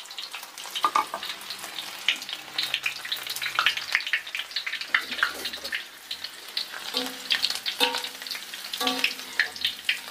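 Garlic frying in hot oil in an aluminium wok: a steady sizzle full of sharp crackles and pops. A metal spoon goes in to stir it near the end.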